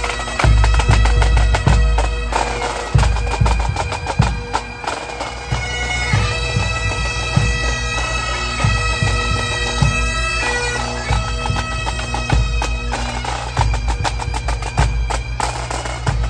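Pipe band playing: bagpipes sounding a melody over a steady drone, with drums beating throughout.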